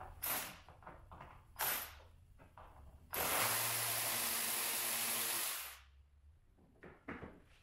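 Two brief sounds, then a cordless power drill/driver runs steadily for about two and a half seconds, starting about three seconds in and stopping abruptly, as it backs out one of the Can-Am X3's hood fasteners.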